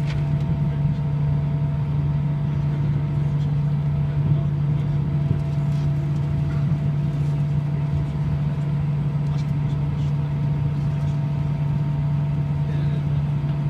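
Airbus A319 jet engines running at low taxi thrust, heard inside the cabin: a steady low drone with a faint steady whine above it.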